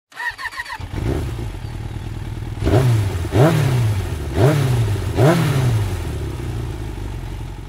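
Motorcycle engine starting, blipped four times in quick throttle revs, then settling to a steady idle that fades out. A short run of high chirps comes just as it starts.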